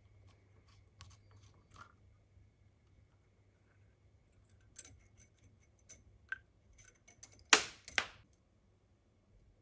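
Small metallic clicks and taps from hand-dismantling an old oil can's pump: the brass pump tube and its steel coil spring being unscrewed and lifted out. Near the end come two much louder sharp metal clinks about half a second apart, the first ringing briefly.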